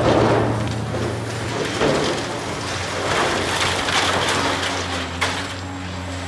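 Caterpillar excavator's diesel engine running steadily under load while its bucket crunches and scrapes through broken reinforced concrete rubble, in several rough surges, the loudest right at the start.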